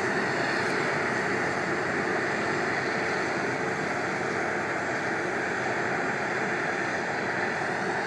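Claas Lexion 670 combine harvester working through a wheat crop, a steady unbroken drone of engine and machinery.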